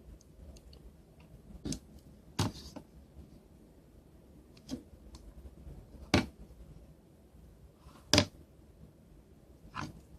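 A handful of short, sharp clicks and knocks, about six spread unevenly over ten seconds, from small hard objects being handled and set down.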